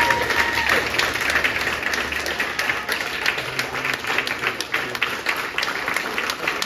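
Audience applause, many hands clapping steadily, with a singer's final held note cutting off under it just under a second in.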